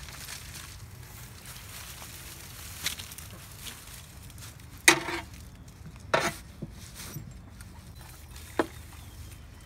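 A pitchfork tossing straw-and-goat-manure bedding onto a compost pile: rustling and scraping, with four sharp knocks of the fork, the loudest about five seconds in.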